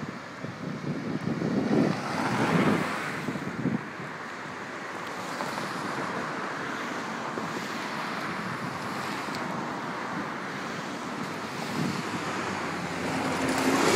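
Wind buffeting the phone's microphone in irregular gusts for the first few seconds, then a steady rushing noise of wind with street traffic.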